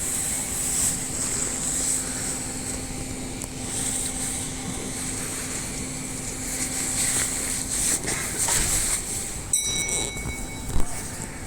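Railway ambience around a stopped electric commuter train: steady background noise with a low hum that stops about eight seconds in. A click about nine and a half seconds in, then a brief high electronic tone.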